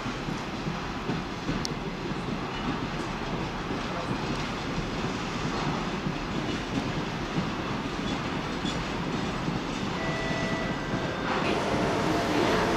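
Container flatcars of a freight train rolling past with a steady rumble and light clatter. Near the end it grows louder and a steady hum joins in as the train's twin-section 2M62U diesel pusher locomotive comes up.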